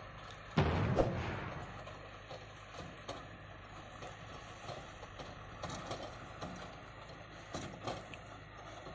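A sudden heavy thump about half a second in, with a second knock just after it and a rumble fading over about a second, followed by faint scattered ticks and rustles.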